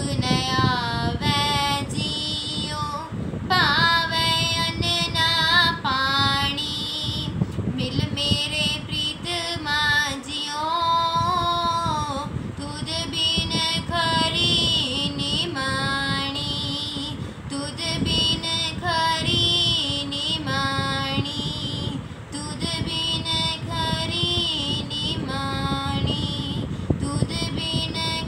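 A girl singing a Sikh shabad, a devotional hymn, solo voice in long melodic phrases with held notes and pitch glides.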